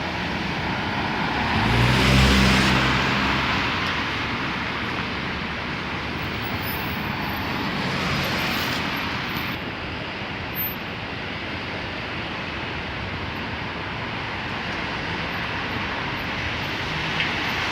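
Traffic on a wet city street in the rain: a steady hiss of rain and tyres on wet road. One vehicle passes close about two seconds in, its engine briefly louder, and another passes around eight seconds.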